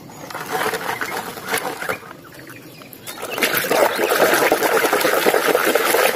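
Plastic toys knocking and rattling in a tub, then water splashing and sloshing as a hand scrubs a plastic toy bus in a basin of muddy, foamy water. The splashing turns steady and louder about three seconds in.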